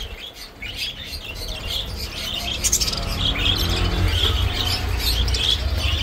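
Many small caged birds chirping together in a dense chatter of short high calls, over a low steady rumble.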